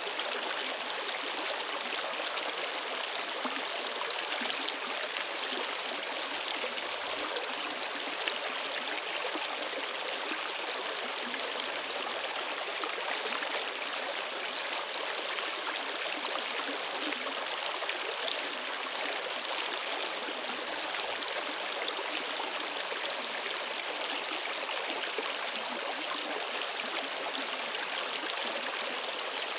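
Flowing water rushing steadily and evenly.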